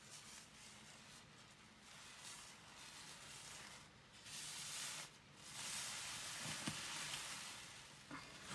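Slime being handled and stretched: faint, soft squishing and crackling. It grows louder about four seconds in and again from the middle to near the end.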